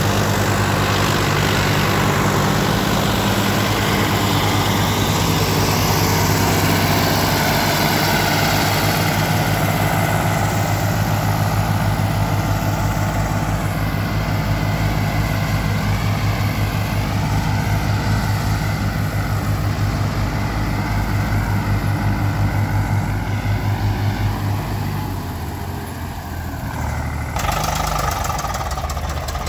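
Diesel engines of a Farmtrac 45 and an Eicher 485 tractor running steadily under load, towing a sand-laden trolley through soft ground. About 27 seconds in the sound changes abruptly to a lighter-running tractor engine.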